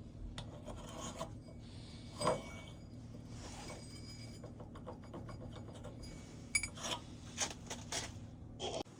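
Hand filing or rasping strokes on the pulley for the lathe spindle, a rubbing scrape broken by sharp clicks and knocks, one about two seconds in and several close together near the end.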